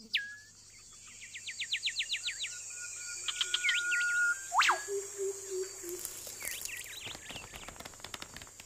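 Birds chirping and calling over a steady, high insect buzz. A quick run of about ten chirps comes near the start, then scattered calls and one sharp whistle that swoops down and back up about halfway through.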